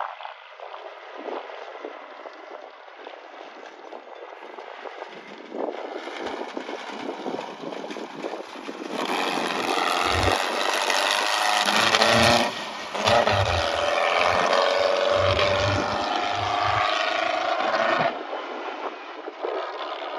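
Air-cooled Volkswagen Beetle race car's engine, heard growing louder as the car approaches on a dirt road, revving up and down as it passes close by, then fading as it drives off. Some low thumps come during the pass.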